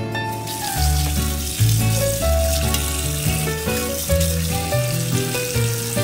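Tap water running over raw shrimp in a metal colander as they are rubbed and rinsed by hand, starting about half a second in, with background music.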